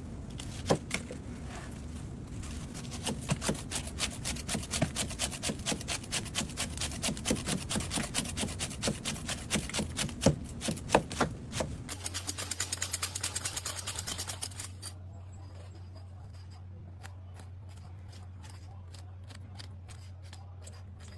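A machine working with a rapid run of sharp clicks and snips. About twelve seconds in, a steady low hum takes over with a quicker burst of clicks that stops a few seconds later. After that only the hum remains, with faint regular ticks.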